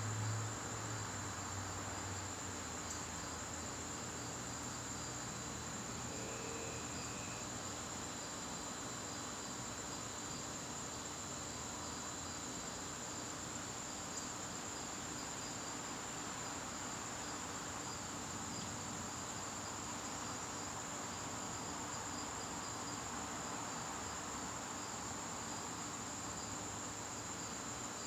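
Garden crickets singing in chorus: one steady high-pitched trill with a second cricket's evenly repeated chirps beneath it. A low hum fades out in the first couple of seconds.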